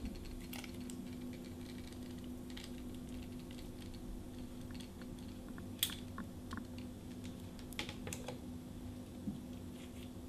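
Scattered light clicks and knocks of a pneumatic sander and its vacuum and air hoses being handled, the tool not running, over a faint steady hum. The sharpest click comes about six seconds in, with a few more shortly after.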